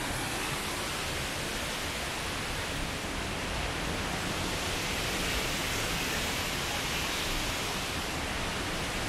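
Steady rush of flowing and falling water, an even hiss with no breaks or distinct events.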